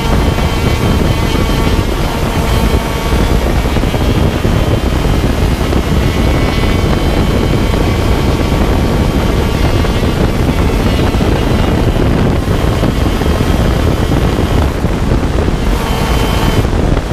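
125cc two-stroke shifter kart engine running at racing speed, its pitch shifting through the lap, heard from on board under heavy wind buffeting on the microphone.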